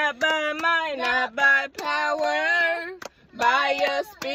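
A woman singing a repeated worship chorus inside a car, clapping along. The singing breaks off briefly about three seconds in, then resumes.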